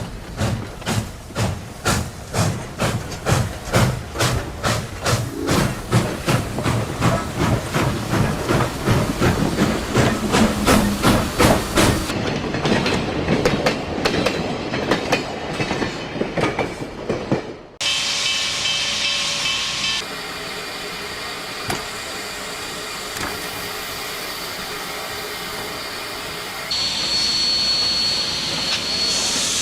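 Steam locomotive working, its exhaust chuffing in an even beat that quickens, then fades duller. After a sudden cut, a steady hiss of steam follows.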